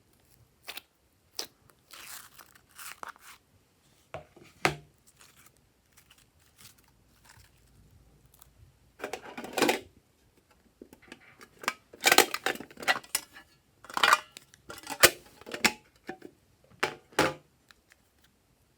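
Glossy slime being squished, stretched and pressed by hand, giving irregular wet crackles and clicks. The crackling comes in clusters and is busiest past the middle.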